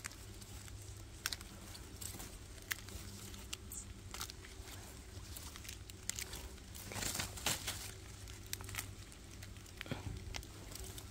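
Leaves rustling and twigs crackling as a hand pushes through beech undergrowth, scattered short crackles with a louder burst of rustling about seven seconds in.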